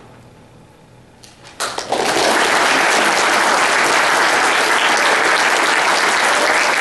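A grand piano's last chord dying away, then audience applause breaking out about one and a half seconds in and continuing steadily.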